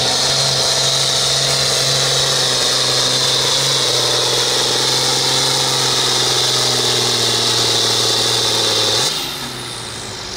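John Deere hot stock pulling tractor's diesel engine held at full throttle under the load of the pulling sled, its pitch sagging slightly as the pull goes on. About nine seconds in the throttle is cut at the end of the pass, and the engine drops suddenly to a lower, quieter run.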